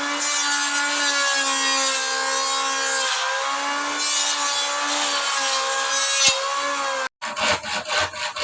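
A power tool working wood with a steady whine that wavers slightly in pitch. Near the end it breaks off suddenly, followed by a few short irregular scraping or knocking strokes.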